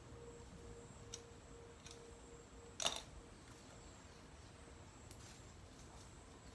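Leafy stems being handled and stripped by hand: a few light snaps, and one sharper crackle about three seconds in. A faint steady tone sits underneath.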